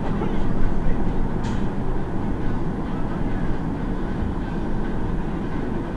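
City bus running, a steady low rumble of engine and road noise heard from inside the bus, with a brief high hiss about one and a half seconds in.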